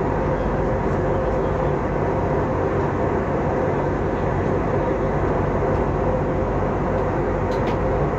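Steady cabin noise of an Airbus A320-family jet airliner in flight, heard from a window seat: a constant rush of engine and airflow with a steady droning tone over a low rumble.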